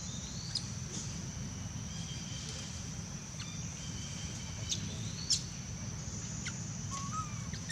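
A steady high-pitched insect drone with brief bird chirps and whistles over it and a few sharp clicks.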